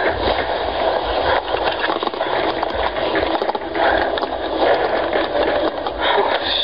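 Steady, loud rushing noise with low rumbles underneath, with no clear voice or tune in it.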